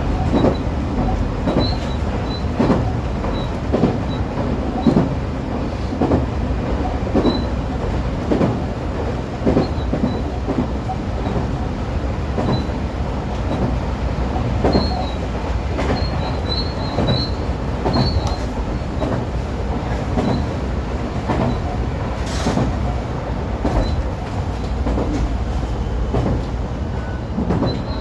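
A 125 series electric railcar running, heard from behind the cab: a steady low rumble of wheels and motors on the rails, with knocks roughly every second or two as the wheels cross rail joints and faint, brief wheel squeals.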